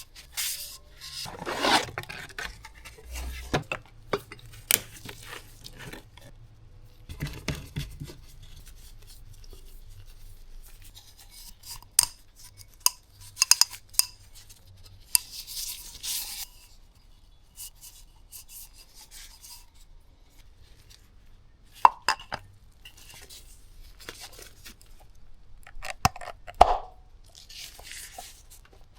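Hands fitting a new oil filter and O-ring: scattered sharp clicks, light knocks and short rubbing and scraping of parts, with a few louder clicks spread through.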